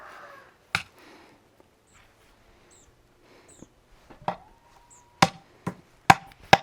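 Sharp chopping strikes of a blade on wood: a single blow, then after a pause a run of five blows coming faster toward the end. Faint bird chirps sound in the gaps.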